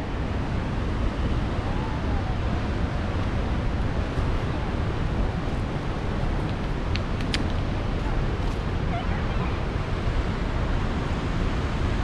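Steady rushing of a waterfall and fast river water, an even, unbroken noise heavy in the low end.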